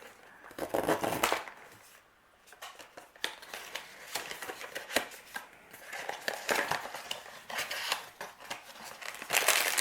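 Small cardboard mystery box being opened at its tab by hand: a burst of cardboard tearing and rustling, then many small clicks, taps and scrapes as the box and its packaging are handled.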